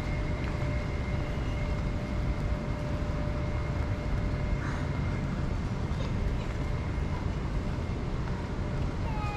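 Steady low rumble of city outdoor ambience, with a faint steady high-pitched tone over it and a couple of short falling chirps near the end.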